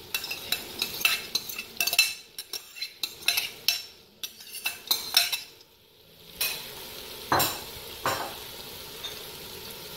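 Boiled chana dal being scraped out of a bowl into a steel cooking pot: a run of quick scrapes and clinks of the utensil against the pot, then two stronger scrapes near the end. A faint steady sizzle of the masala cooking underneath.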